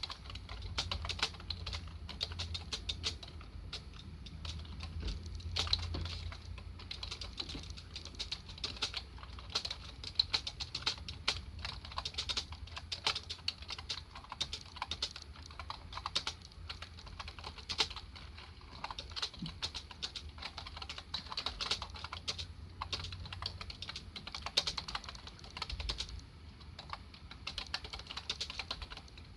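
Dell computer keyboard being typed on: a rapid, continuous run of key clicks.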